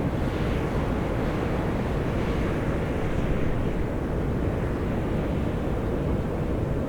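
Volcanic fumarole steadily hissing and rushing as gas and steam vent from the ground, a continuous noisy roar with most of its weight low and a little surging around the middle.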